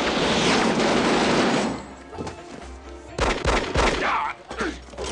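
Rapid gunfire over film score music: one long dense burst for nearly the first two seconds, then shorter volleys of sharp shots about three seconds in and again near the end.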